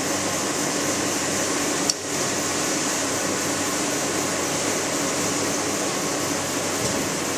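Steady hum and hiss of workshop machinery running, with a single sharp metallic click about two seconds in as the crankshaft is adjusted in the crankshaft grinder's chuck.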